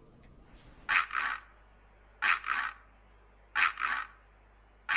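A short double scrape repeated four times, about every 1.3 seconds, over a faint low hum.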